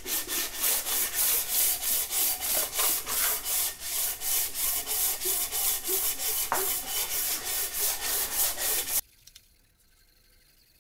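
Hand block-sanding of a 5.3 LS V8 engine block's deck with 220-grit PSA sandpaper stuck to a flat aluminium plate, in even back-and-forth strokes of about three a second. The deck is being trued up and checked for flatness for MLS head gaskets. The strokes stop abruptly about nine seconds in.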